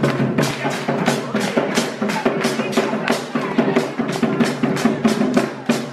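Music with a steady, fast drumbeat, about four beats a second, over a held bass note.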